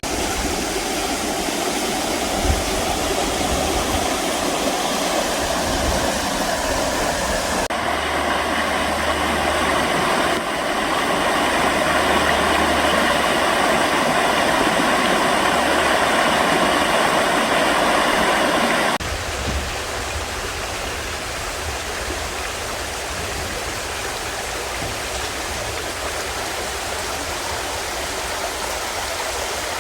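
River Dunsop, an upland river, rushing over rocks with a steady hiss of running water. The sound changes abruptly a few times, loudest and fullest from about 10 to 19 seconds in, then a little quieter.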